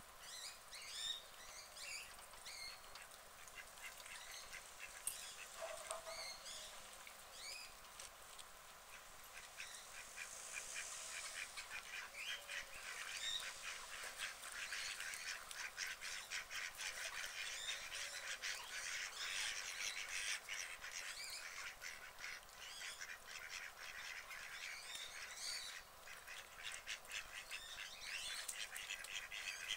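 Lop-eared rabbit tugging at and chewing dry straw: a faint, rapid crackling and rustling, densest through the middle. Birds call now and then over it, most in the first few seconds and again near the end.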